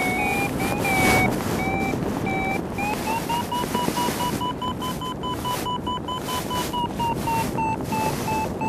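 Paraglider variometer beeping in a quick run of short tones. Its pitch steps up about three seconds in and holds higher, the sign of a climb. Over it, steady wind rush on the microphone, with a stronger gust about a second in.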